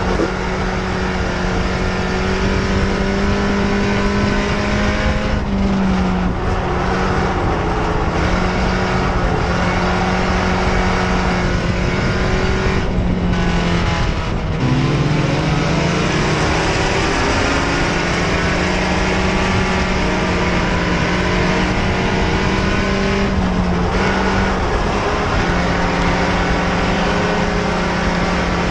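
Mini stock dirt track race car's four-cylinder engine running hard at high revs, heard from inside the cockpit over a haze of wind and tyre noise. The engine pitch dips briefly about every nine seconds as the throttle eases, most deeply about halfway through, then climbs back.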